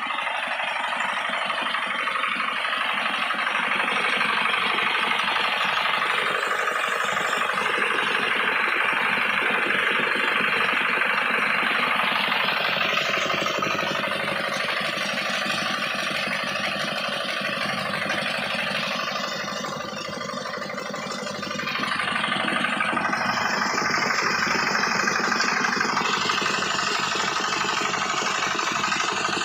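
Prakash stationary diesel oil engine running steadily, belt-driving a thresher that is threshing sorghum, its drum and blower adding a dense steady rush. The sound eases slightly about two-thirds of the way through, then picks up again.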